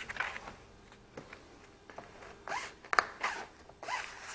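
Short rasping scrapes, several in a row, of the rigid plastic edge of a foam door weather strip being pushed along into the groove of a door frame.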